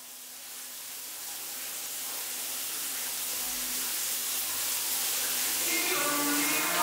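A steady hiss of noise swelling gradually louder, with music fading in under it near the end.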